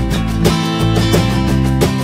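Background music led by a strummed guitar, with sharp strokes repeating through it.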